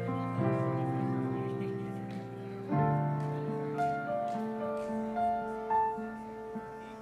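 Slow instrumental keyboard music: long held chords with a slow melody over them, the chord changing shortly after the start and again, louder, nearly three seconds in.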